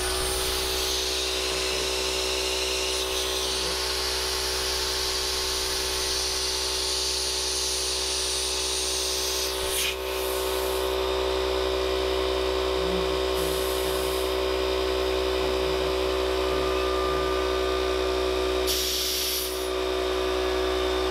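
An air compressor motor starts and runs with a steady hum while compressed air hisses from an air gun into a fishing buoy. About ten seconds in there is a click and the strong hiss drops away. Two shorter hisses follow later.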